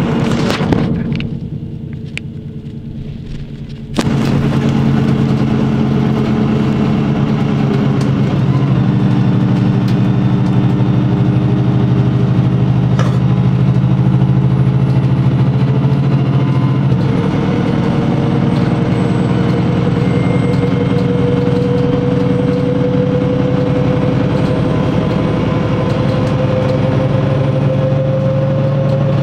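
VDL bus engine running. After a quieter first few seconds it comes in suddenly louder about four seconds in, then runs steadily, with a whine that rises slowly in pitch through the second half.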